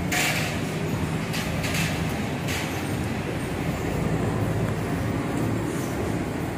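A removed scooter bracket being handled on a workbench, giving a few sharp knocks in the first three seconds, the loudest right at the start, over a steady low background rumble.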